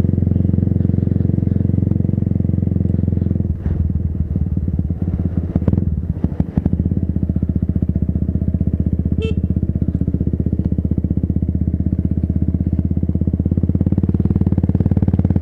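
Motorcycle engine running while riding at low speed. The note dips and goes uneven for a few seconds about four to six seconds in, then settles back to a steady run.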